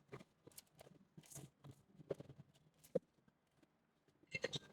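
Faint, scattered clicks and light knocks of fan parts being handled and fitted together during assembly, with a quiet stretch a little past halfway and a few more clicks near the end.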